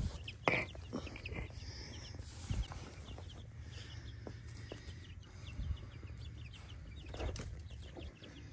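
Young chicks peeping, many short high cheeps throughout, with a sharp knock about half a second in and another about seven seconds in.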